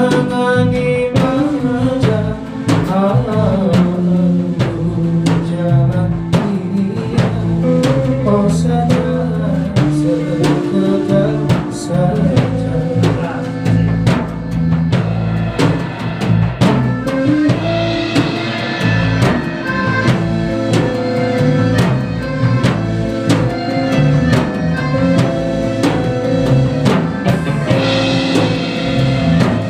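Band music without recognised vocals: a drum kit keeps a steady beat under sustained melodic instruments.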